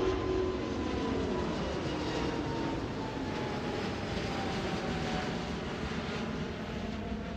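Airbus A350-900's Rolls-Royce Trent XWB jet engines during takeoff and climb: a steady roar with a whine that slowly falls in pitch while the sound eases a little.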